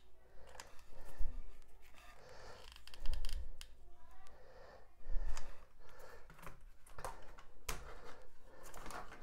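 Foam track-bed strip being handled and flexed, rubbing and rustling, with scattered sharp clicks and a few soft bumps.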